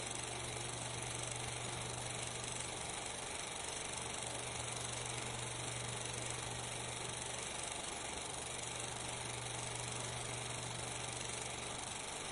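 Steady hiss with a low hum underneath and no distinct events: the background noise of a silent 16mm film transfer.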